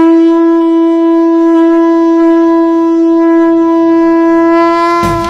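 Conch shell (shankha) blown in one long, steady note lasting about five seconds. Near the end it gives way to drum-led music.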